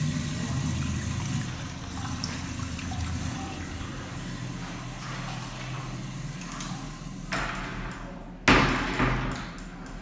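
Commercial urinal's flushometer valve flushing: rushing water that fades away over the first few seconds. A sudden loud knock near the end.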